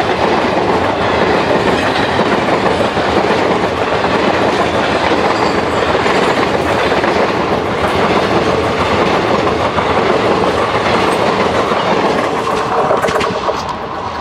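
Passenger coaches of an express train rolling past at speed: a steady, loud rush of wheels on the rails that begins to fade near the end as the last coach goes by.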